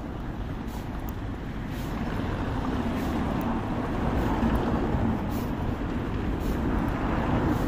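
Street traffic: a motor vehicle's steady rumble that grows louder over the first few seconds and then holds.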